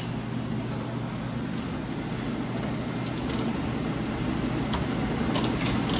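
Sharp metal clicks from a coin-operated bouncy-ball vending machine's coin mechanism and turning crank, a few about halfway through and a quick cluster near the end, over a steady background hum.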